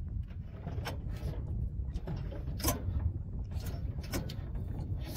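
Recoil starter of a small boat engine yanked several times in quick pulls, the rope whirring out each time, while the engine turns over without catching. The crew say the engine is broken.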